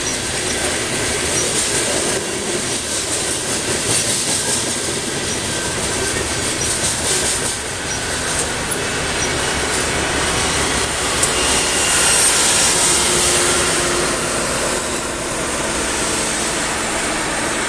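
Freight train of covered hopper cars rolling past: steady wheel-on-rail noise with repeated clicking of wheels over the rail joints.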